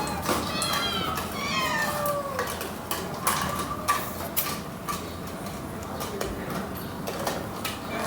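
Cats meowing: a few rising-and-falling meows in the first couple of seconds and another near the end, with light clicking and clatter in between.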